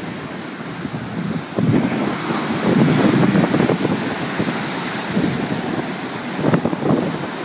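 Hurricane-swell surf breaking and washing up the beach, with wind buffeting the microphone; it gets louder from about two seconds in.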